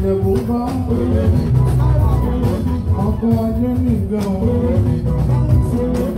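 Band music with guitars over a heavy bass line, steady percussion and a singing voice.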